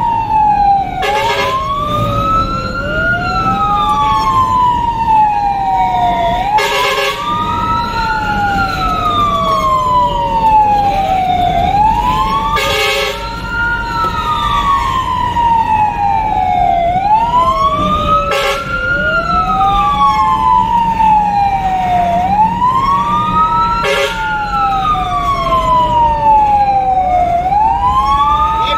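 Fire engine siren wailing from inside the cab, two overlapping tones each rising and falling in slow cycles of about six seconds. A short burst sounds about every six seconds, and the truck's engine rumbles low underneath.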